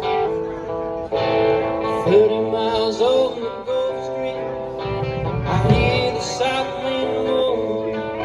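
Band playing the instrumental intro of a country-rock song, led by guitar, with a lead line bending between notes.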